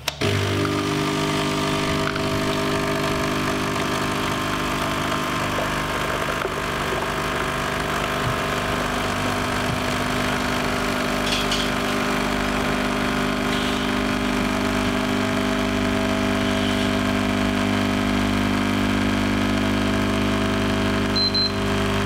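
Nescafé Dolce Gusto Jovia capsule coffee machine's pump running steadily, a loud, even buzzing hum as it pushes hot water through a capsule and brews into a glass. Near the end, two short high beeps from the timer app signal that it is time to stop the machine.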